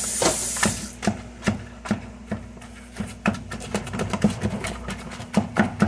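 A mixing utensil knocking and scraping against a plastic bowl while stirring thick mashed sweet potato filling by hand, in irregular clicks a few times a second over a low steady hum.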